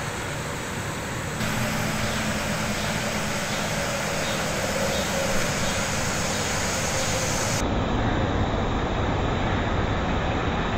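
Steady outdoor background noise with a low mechanical hum. It changes abruptly twice, about a second and a half in and again near eight seconds in.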